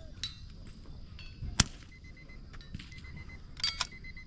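.22 LR rimfire rifle shot about a second and a half in, followed near the end by a few sharp metallic clicks.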